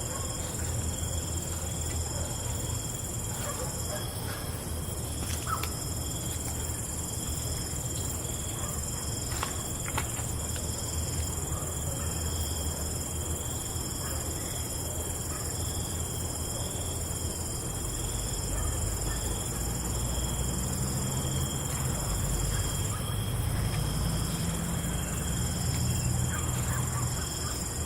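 Steady chorus of crickets and other night insects, several high trilling tones held throughout with a slight pulse. A low rumble underneath swells for several seconds in the second half.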